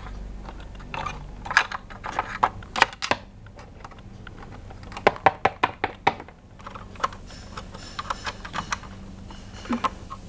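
Hard plastic toys being handled: a run of small, irregular clicks and taps that come in loose clusters.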